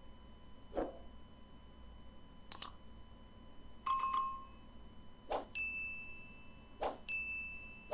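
Sound effects for a subscribe, bell and like button animation: four sharp mouse-click sounds, a short bell-like ding about four seconds in, and two higher chime tones near the end that each hold for about a second.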